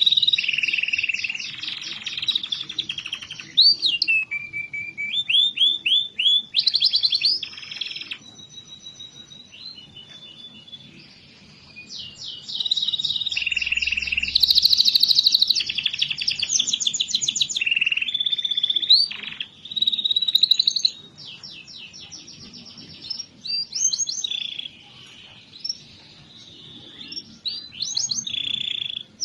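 Domestic canary singing a long, varied song of fast trills and rolling phrases, with louder stretches of trilling alternating with softer, quieter passages.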